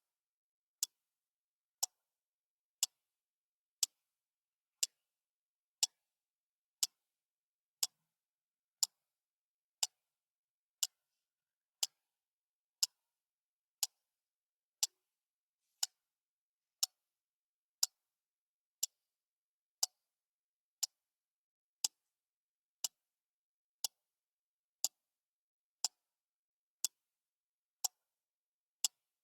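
Clock ticking steadily, one short sharp tick each second with silence between the ticks.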